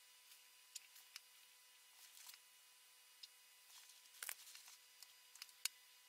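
Faint scratches and taps of a fine paintbrush working oil paint onto a stretched canvas, heard as scattered short clicks; the loudest little cluster comes about four seconds in. A faint steady hum sits under it.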